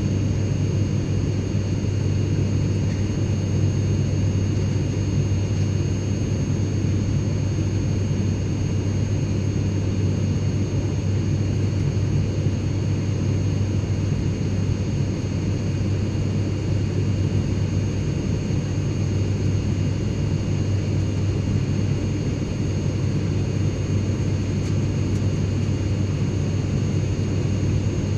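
Airplane cabin interior noise: a steady low drone with a strong hum and an even rushing hiss, with a few faint, steady high whines over it. It does not change.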